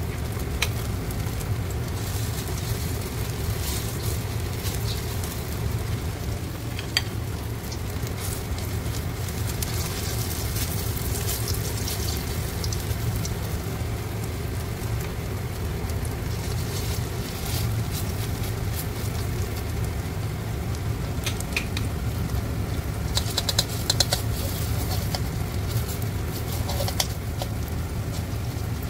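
Pumpkin pancake batter frying in hot oil in a wok: a steady sizzle with scattered crackles and pops, and a run of louder crackling a little past two-thirds of the way through. A steady low hum runs underneath.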